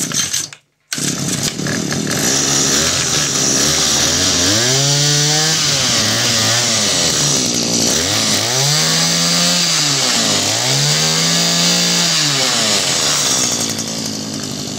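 Echo EDR2100 gas drill's small two-stroke engine starting up about a second in, then revved up and back down three times before settling to idle near the end. It runs well.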